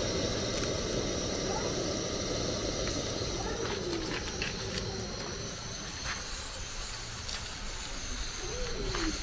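Steady outdoor background noise with a low rumble, a few light clicks and faint distant voices.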